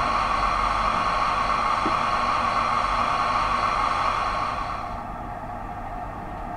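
OO gauge model train running on the layout: a steady hum and rumble that eases off about five seconds in.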